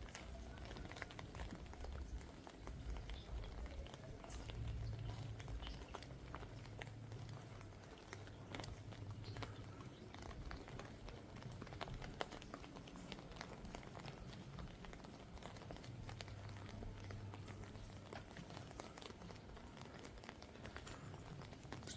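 Light rain pattering, with irregular small ticks of drops and a walker's footsteps on wet ground; a faint low hum comes and goes.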